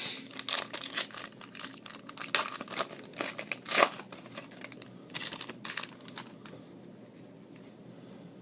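Foil trading-card pack wrapper crinkling and tearing open, a dense run of sharp crackles that dies away after about six seconds.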